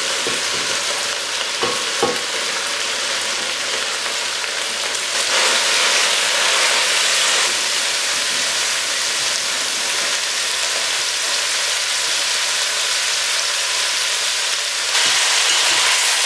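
Meat and freshly added chopped vegetables sizzling in a saucy stainless steel pot, with a couple of sharp knocks about two seconds in. The sizzle grows louder a few seconds in and again near the end as the pan is stirred with a wooden spoon.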